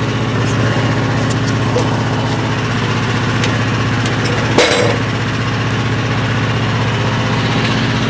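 An engine running steadily at a constant speed, with an even low hum. A single sharp knock comes about halfway through.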